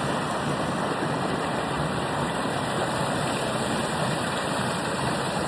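Small creek waterfall: a steady rush of falling, splashing water.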